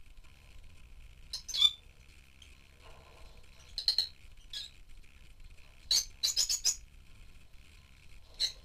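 Rosy-faced lovebirds giving short, high chirps one at a time, with a quick run of four about six seconds in.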